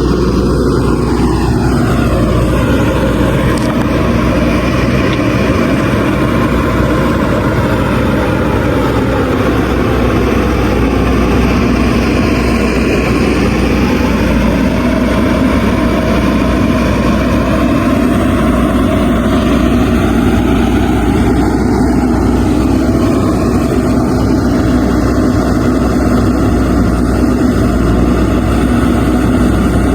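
JCB 3DX backhoe loader's diesel engine running under working load, its pitch slowly rising and falling over several seconds as it digs.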